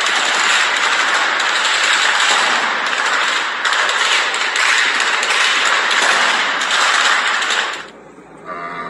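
Dense, continuous crackle of rapid gunfire in a firefight, many shots running together, loud and unbroken; it cuts off suddenly about a second before the end, leaving a much quieter background.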